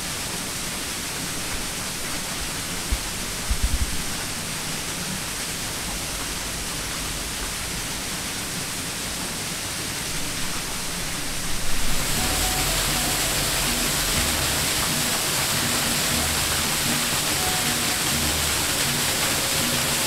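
Steady rushing of falling water, with a few low thumps about three to four seconds in; the rushing turns brighter and a little louder about twelve seconds in.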